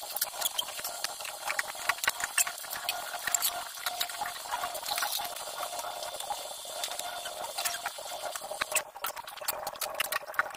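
Dishes washed by hand at a stainless steel sink: a soapy sponge scrubbing pots and pans, with water and many light clinks and knocks of cookware.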